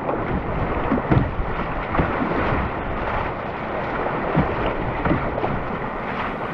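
Whitewater rapids rushing steadily around a canoe, with occasional short low thumps.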